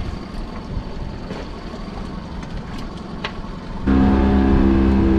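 Wind and water noise with a few light knocks. About four seconds in, this cuts suddenly to a boat's engine running steadily under way, much louder.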